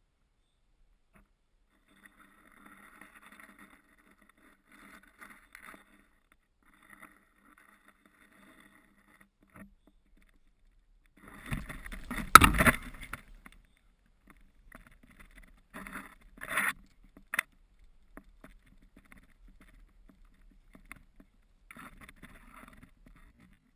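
Mostly faint rustling and camera-handling noise. About twelve seconds in comes a loud burst of handling and rustling lasting a couple of seconds, and a few shorter bumps follow around sixteen to seventeen seconds.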